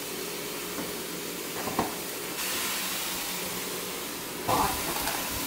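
Ground turkey sizzling in an oiled frying pan with onions and mushrooms: a steady frying hiss that grows louder a couple of seconds in, with a single short knock just before.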